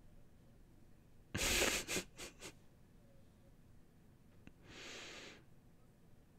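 A man's breathy laugh through the nose: one strong puff of air about a second and a half in, followed quickly by three shorter puffs, then a softer breath out about five seconds in.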